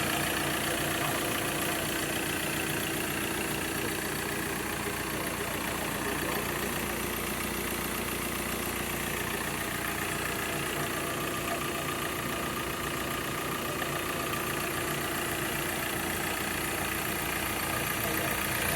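2016 Ford Transit diesel engine idling steadily.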